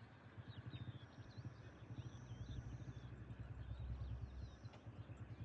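Small birds chirping and twittering, with a high thin trill held for about a second at a time over a steady, fast-pulsing low rumble.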